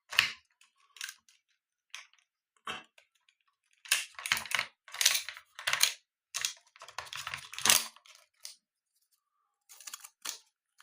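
Hands handling a 35mm film roll and a plastic compact film camera while loading it: irregular small clicks and taps, with a cluster of longer scraping, rustling handling sounds in the middle.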